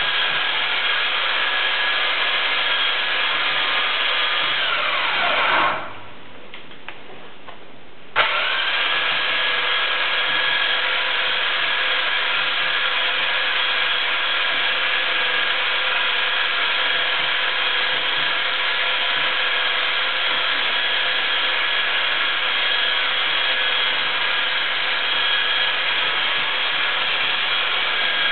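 Mine-shaft winch motor hauling a man up on its cable, running with a steady whine. About five seconds in it winds down and stops, and some two seconds later it starts again, coming quickly back up to speed.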